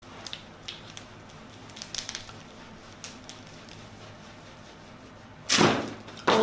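A loud whoosh about five and a half seconds in, lasting under half a second, with a second one starting at the very end, after a few faint clicks.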